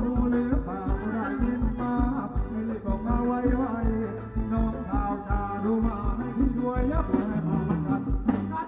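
Thai ramwong dance music from a live band, with a steady drum beat under a singing voice and melody.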